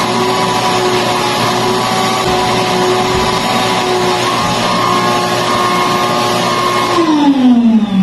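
Small drum-style vacuum cleaner running steadily with a high motor whine as its hose nozzle works over fabric sofa cushions. About seven seconds in it is switched off and the whine drops in pitch as the motor spins down.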